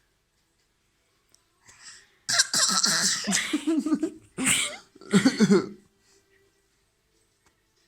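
Small child imitating a man's cough: a long, hoarse, forced cough with her voice in it, starting about two seconds in, then two shorter ones.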